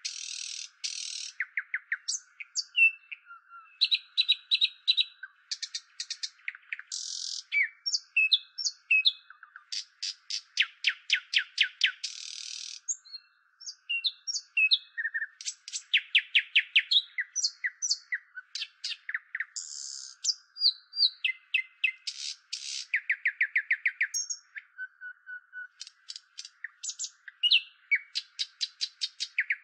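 A bird sold as an Indian nightingale sings a long, varied song: rapid runs of repeated notes, buzzy phrases and short whistles, broken by brief pauses. A faint steady hiss lies underneath.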